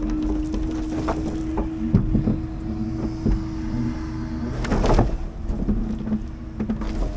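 Scania timber truck's diesel engine running steadily, with a held hum that stops about four and a half seconds in. Scattered knocks and one louder thud about five seconds in.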